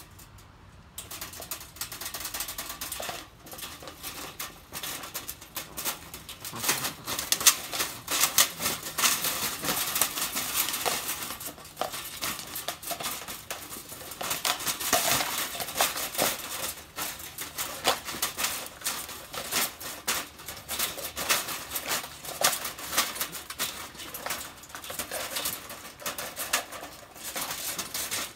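Wire cage trap rattling and clicking as a dying raccoon thrashes inside it: a rapid, irregular metallic clatter that starts about a second in, comes in surges and keeps on.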